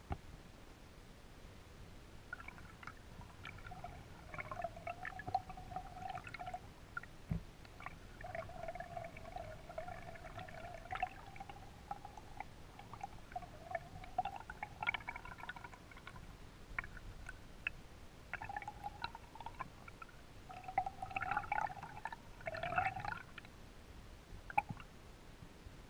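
Water heard through a submerged GoPro: gurgling, warbling tones that come and go for a second or more at a time, and scattered clicks over a low rumble.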